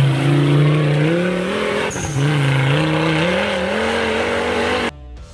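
Off-road buggy engine revving hard under load, its pitch climbing, dipping briefly about two seconds in, then climbing again, over the rush of spinning tyres throwing snow and leaves. It cuts off suddenly near the end.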